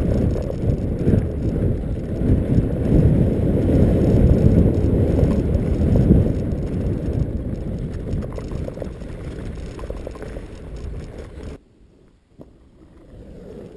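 Mountainboard riding on grass: the rumble of the board's wheels over the turf mixed with wind buffeting the microphone, loud at first and slowly fading as the board slows. About eleven and a half seconds in it cuts off to a much quieter background.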